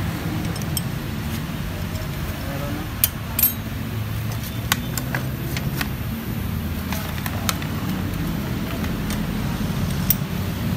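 Metal tools and the brake caliper clinking while a scooter's front disc brake is worked on: a scattering of sharp, separate clicks, heaviest in the middle, over a steady low rumble of background traffic.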